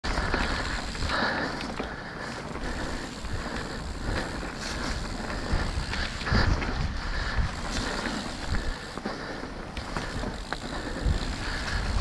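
Mountain bike rolling down a wet dirt singletrack: tyres rumbling over dirt and roots, with frequent knocks and rattles from the bike over bumps, and wind on the camera's microphone.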